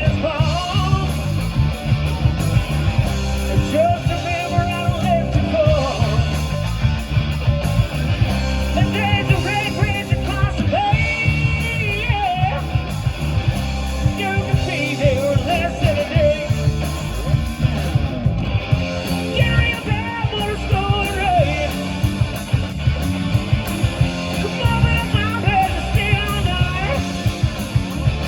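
Rock band playing a hard-driving rock and roll song, with a lead vocal over guitars, bass and drums.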